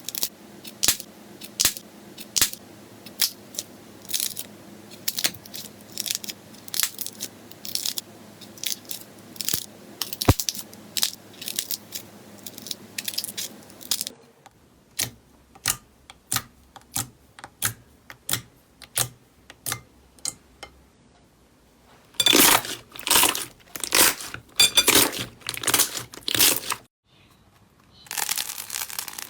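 Slime being pressed, poked and pulled by hand, making a run of sharp pops and clicks several times a second. Near the end it turns to dense, loud crackling, with a short break just before the last second.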